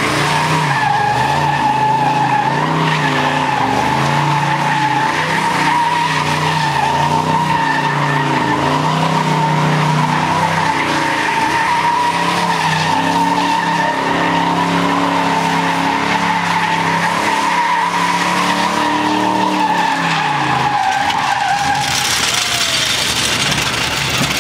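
Chevrolet Camaro doing a burnout: the engine is held at high revs, its pitch wandering up and down, under a steady, high-pitched tire squeal. The squeal stops a couple of seconds before the end.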